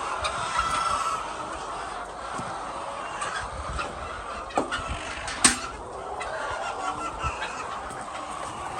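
Flock of domestic chickens clucking continuously, many birds calling over one another. A sharp knock sounds about halfway through.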